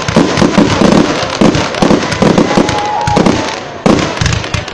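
Fireworks display going off in a rapid, continuous barrage of bangs and crackles, with a brief whistling tone a little past halfway.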